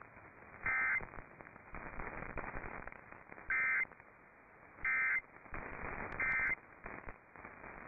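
Emergency Alert System end-of-message data bursts heard over AM radio: four short bursts of digital tone about a second or so apart, with radio hiss between them.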